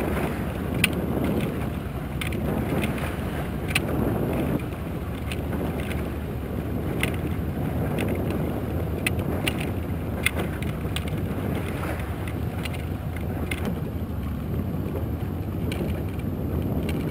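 Small outboard motor running steadily at trolling speed, with water washing along the boat's hull and scattered sharp ticks.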